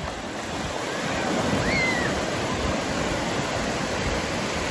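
Sea surf breaking and washing up the shore around the legs: a steady rush of waves and foam.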